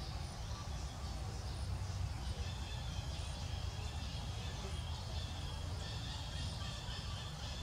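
Outdoor background noise: a steady low rumble with a faint even hiss, and faint high, steady buzzing tones from about two seconds in.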